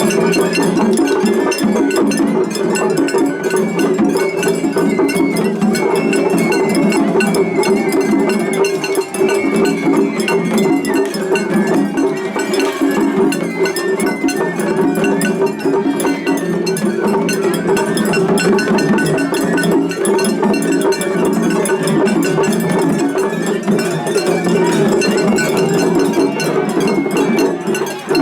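Japanese festival hayashi music: taiko drums and a clanging atarigane hand gong struck in a fast, continuous rhythm, with a high bamboo flute line wavering above it through the middle.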